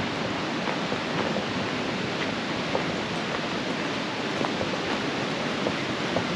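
Steady rushing of a river running high and fast.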